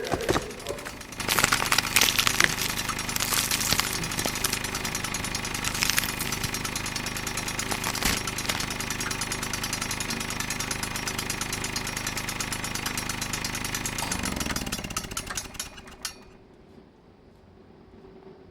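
A motorised power tool running with a fast, steady rattle, then winding down and stopping about two seconds before the end.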